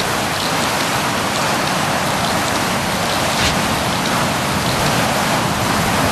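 Steady hiss of rain falling, with a few faint drop ticks.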